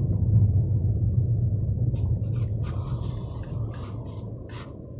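Low rumble of a car cabin on the move, tyres and engine droning, slowly fading as the car slows down.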